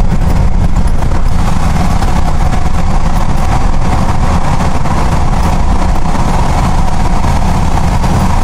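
In-cabin sound of a 2002 Hyundai Galloper II SUV driving at steady speed through a road tunnel: an even engine drone and tyre-on-road noise, with a steady mid-pitched hum, all at a constant loud level.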